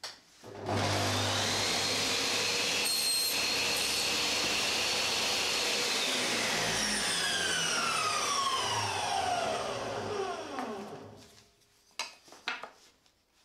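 Table saw starts up about a second in, runs with a steady whine and cuts through a small wooden piece on a crosscut sled, then is switched off and winds down with a falling whine for about five seconds. A few knocks of the cut wooden pieces being picked up near the end.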